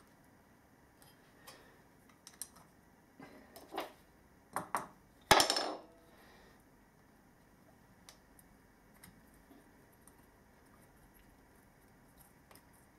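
Metal tools and motor parts being handled on a workbench: a series of small clinks and knocks, then one loud metallic clank with a short ring about five seconds in, followed by quiet.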